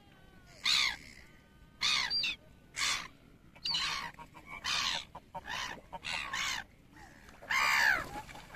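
Black-headed gulls calling, a string of about ten harsh squawking calls, some overlapping, with the longest and loudest call near the end.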